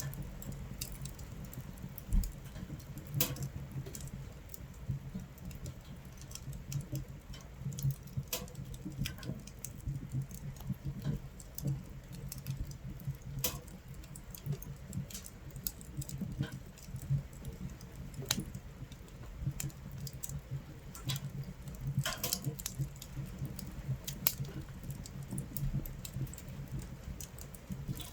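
Wood fire crackling in a camping stove, with sharp, irregular pops, some louder than others, over a steady patter of rain on the tent.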